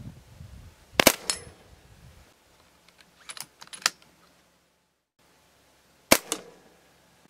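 Shrouded Brocock Sniper XR .22 PCP air rifle firing twice, a sharp crack about a second in and again about six seconds in, each followed quickly by a fainter click. In between come two lighter metallic clicks from the side-lever cocking.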